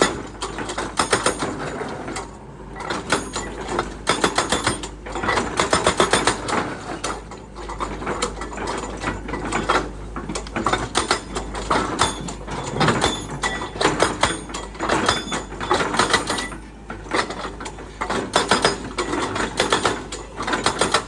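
Hitachi Landy excavator working: a dense, continuous, rapid mechanical clattering and rattling over a steady low hum.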